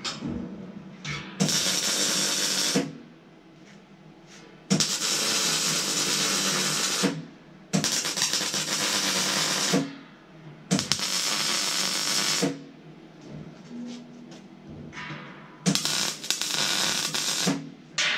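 MIG welder laying short welds on sheet steel, five runs of a steady crackling hiss, each one to two seconds long, with short pauses between them while the hopper is tacked to its frame.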